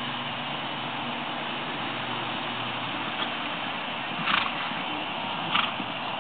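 Steady outdoor background noise on a camcorder microphone, with two brief louder scuffs a little over a second apart in the second half.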